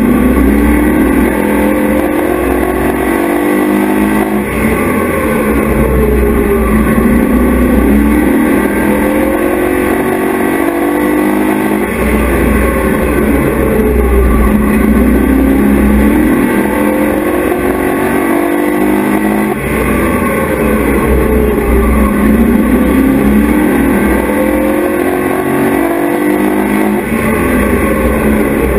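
Race truck engine heard from inside the cockpit at racing speed, rising in pitch under throttle and falling as it lifts, over and over about every four seconds as it laps the track.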